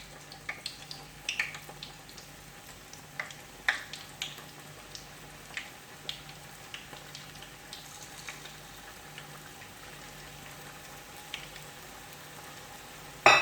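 Chicken samosas deep-frying in hot oil: a steady sizzle with scattered pops and crackles, the popping thinning out after the first few seconds.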